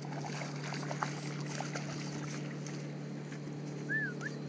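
A hooked trout splashes and thrashes at the surface near the bank while a spinning reel brings it in, with a few light ticks in the first two seconds. A steady low motor hum runs underneath, and a short high chirp comes about four seconds in.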